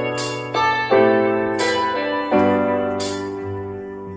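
Background piano music: chords struck one after another, each ringing and fading before the next.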